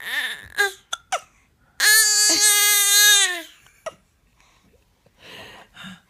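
Short, sharp hiccups and then one long, high wailing cry of about a second and a half that holds its pitch and then falls. Another single hiccup follows it.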